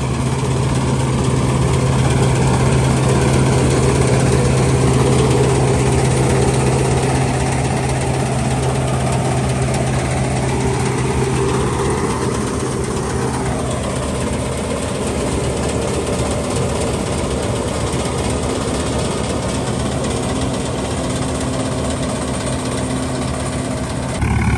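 Swaraj 855 tractor's diesel engine running steadily under load as it drives a straw reaper, the reaper running with it in one continuous drone. The low part of the drone is strongest in the first half and eases off a little past the middle.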